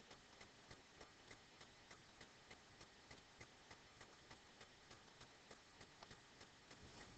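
Near silence: room tone with faint, regular ticking, about four ticks a second.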